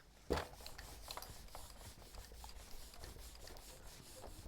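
Faint scratchy rubbing of handwriting with a pen or marker, opening with a light knock, then a run of small scratches and ticks.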